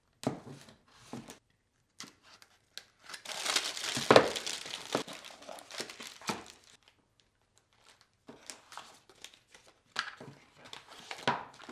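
Unpacking a cardboard kit box: plastic bags and wrapping crinkling and rustling as they are pulled out, with cardboard flaps scraping and a few light taps. The crinkling is busiest about three to five seconds in, pauses briefly, then picks up again near the end.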